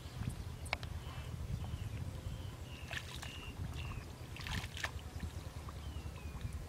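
Shallow muddy water sloshing and splashing in short bursts as a person wades and gropes by hand for fish, over a low steady rumble. A few faint, short high chirps are heard as well.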